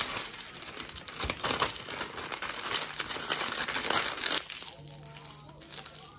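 Parchment paper crinkling and rustling as it is rolled tightly by hand around a soft filling and twisted at the ends. The crinkling is dense and crackly for the first four seconds or so, then eases off.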